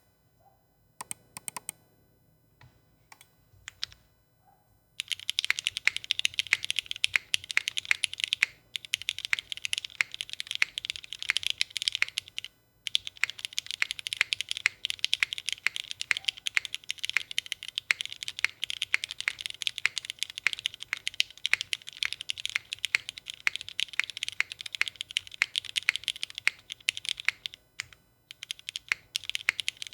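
Custom Kohaku mechanical keyboard with Cherry MX2A switches on an aluminium gasket-mounted plate and GMK Norse keycaps being typed on. A few scattered keypresses, then fast continuous typing from about five seconds in, with a couple of short pauses, thinning to separate presses near the end.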